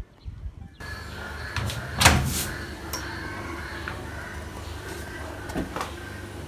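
A loud knock about two seconds in, followed by a few lighter clicks and knocks, over a steady low hum.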